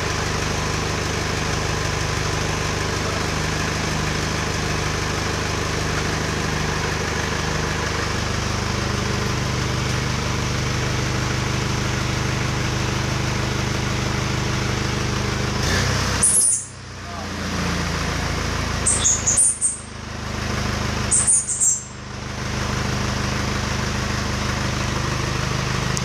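Isuzu Elf truck's diesel engine idling steadily, running again after an engine wash. About two-thirds of the way in the sound drops away sharply three times, with a few short high chirps.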